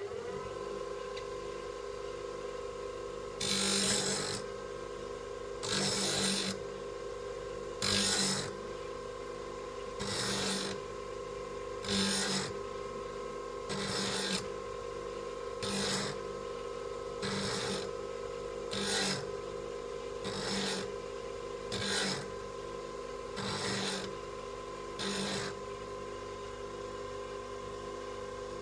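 Bench grinder running with a steady hum while a steel cold chisel, held in a sliding jig, is pushed across the grinding wheel about once every two seconds, grinding its two main bevels. The grinding passes begin a few seconds in, each louder than the hum, and grow shorter and lighter toward the end.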